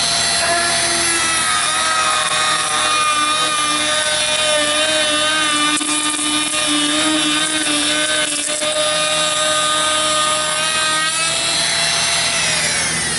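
Bosch Colt palm router running at full speed with a steady high whine while its bearing-guided profile bit cuts along the edge of a wooden board in a shallow first pass. The pitch wavers as the bit bites into the wood, and near the end the router is switched off and winds down.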